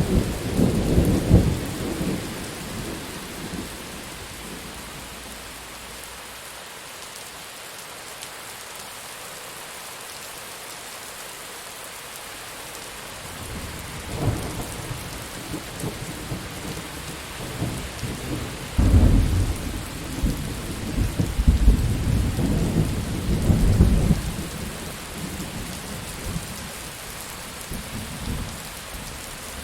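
Steady rain with rolling thunder: a rumble fades out over the first few seconds, then more rumbles build to the heaviest thunder about twenty seconds in before they die away.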